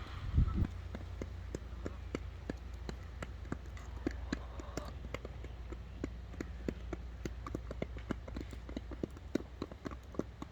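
Chickens pecking at feed: many quick, irregular taps of beaks on the ground, several a second, with a soft cluck about halfway through.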